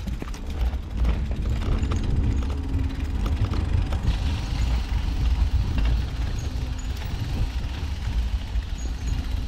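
Wind buffeting the microphone of a camera on a moving road bicycle, an unsteady low rumble with a few faint clicks.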